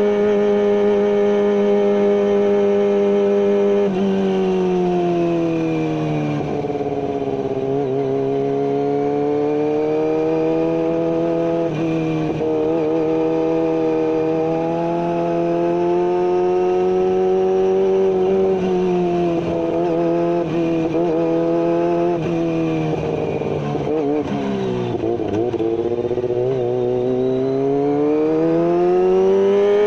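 Kawasaki ZX-25R 250 cc inline-four engine running through a carbon GPR full-system exhaust with no dB killer, held at high revs. Its pitch falls about a quarter of the way in, holds steady for a long stretch, wavers and dips once more, then climbs sharply near the end.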